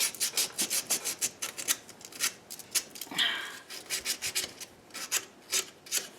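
Emery cloth rubbed briskly back and forth over the starter cable's ring terminal: a run of rasping scrapes, about five strokes a second at first and sparser toward the end. It is scouring the terminal clean and shiny for good electrical contact.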